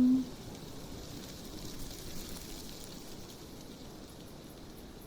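A held low hummed note cuts off just after the start. Then a steady, soft, even hiss continues, like light rain.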